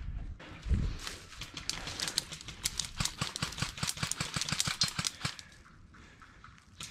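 Footsteps crunching and rustling through dry leaf litter and brush, a dense irregular run of crackles that dies down about five and a half seconds in. A low thump comes just under a second in.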